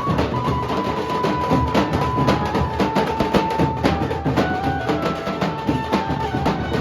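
Nasik dhol drumming: dense, fast strokes of several drums, with a held high melody line of single notes shifting in pitch above the beat.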